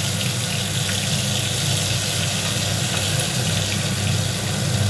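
Ground ginger, green chilli and tomato paste sizzling steadily in hot oil in a kadai, with a steady low hum underneath.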